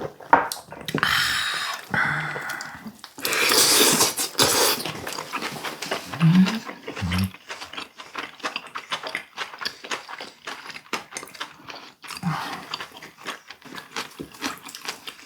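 Close-up eating sounds: two long wet slurps or sucks in the first few seconds, a couple of short low hums of enjoyment, then steady chewing with many small wet clicks as boiled duck meat is eaten.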